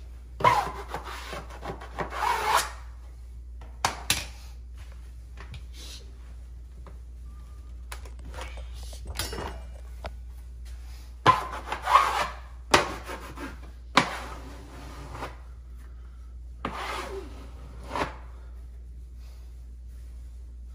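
Wallpaper smoothing tools rubbed in short strokes over grasscloth wallpaper to press it onto the wall. There is a series of separate scraping strokes with pauses between, several coming close together about halfway through.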